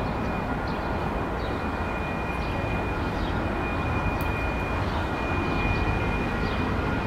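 A pair of DXB-class diesel-electric locomotives approaching with a steady low engine rumble that grows a little louder about two thirds of the way in, over a steady high-pitched tone.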